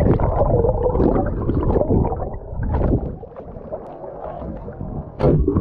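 Muffled water sloshing and gurgling around a waterproof camera held at and just under the sea surface, with a sharper splash about five seconds in.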